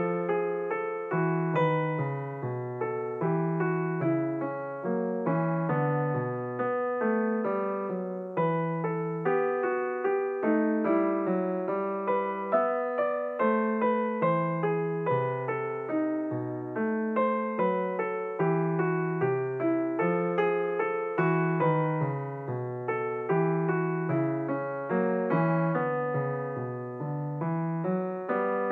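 Background piano music: a gentle, unbroken melody of struck notes, each fading away.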